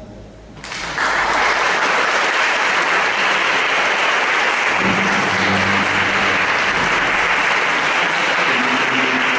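Audience applause for a lecturer at the end of his talk. It breaks out about a second in and holds steady.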